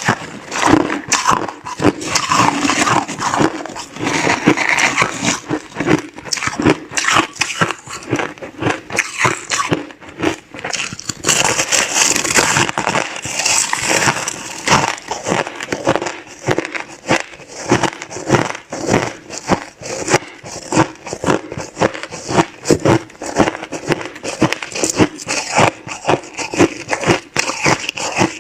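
Close-miked chewing of crushed clear ice: a continuous run of crisp cracking and crunching bites, dense and irregular.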